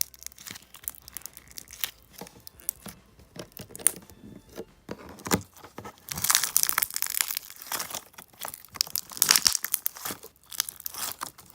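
Putty being stretched, folded and squeezed by hand, crackling and popping as air bubbles trapped in it burst, with denser runs of crackling about six and nine seconds in.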